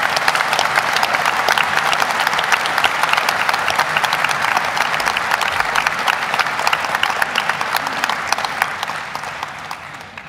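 A large audience applauding, many hands clapping together, dying away near the end.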